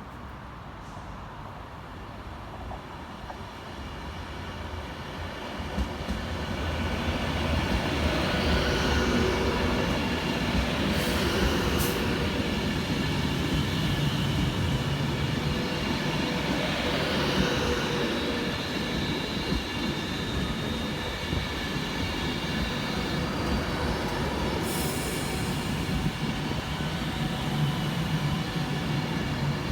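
A passenger train coming into the station, growing louder over the first several seconds, then a steady rumble with several high whining tones held over it; a few high tones rise and fall along the way.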